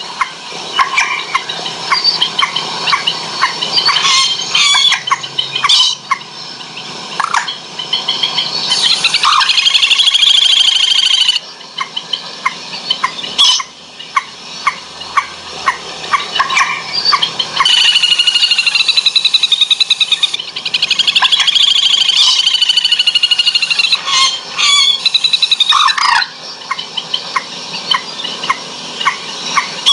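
Recorded bird calls played loud through a pair of Titan 10 W horn tweeters during a sound test of these night-bird lure speakers. Rows of short, sharp calls are broken by three long trills, and the speaker calls the sound piercing enough to hurt the ears.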